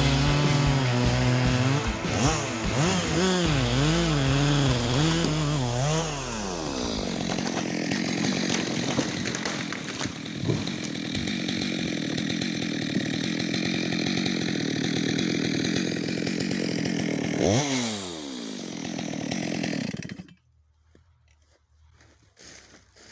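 Chainsaw engine revving up and down for several seconds, then running steadily under load while cutting into wood for about ten seconds. Its pitch falls near the end and the engine stops suddenly, leaving only faint small sounds.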